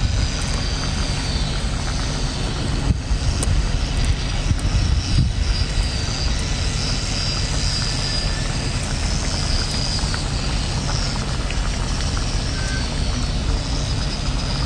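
Steady low rumble and hiss of wind buffeting the microphone outdoors.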